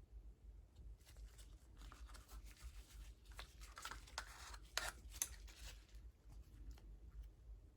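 Faint scraping and rubbing of small plastic mixing cups and a stir stick, with a few light clicks, as leftover epoxy resin is scraped out and drizzled into a mould; it is loudest about five seconds in and stops about six seconds in. A low hum runs underneath.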